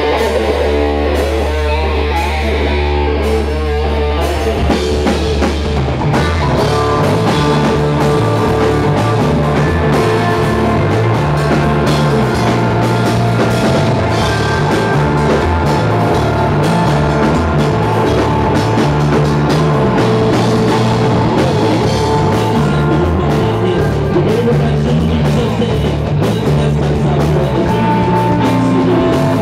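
Live rock band playing loud on electric guitar, bass guitar and drum kit. A held, ringing chord opens, and the full band with drums comes in about four seconds in.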